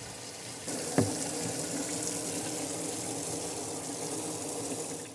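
Warm water from a utility-sink faucet running onto and into a plastic fluid-extractor syringe barrel as it is rinsed out. The flow grows louder a little under a second in, with a short falling bloop about a second in.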